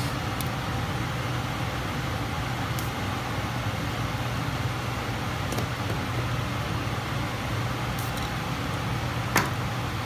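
Steady low mechanical hum running evenly throughout, with a few faint clicks of wire strippers working copper wire, the sharpest one near the end.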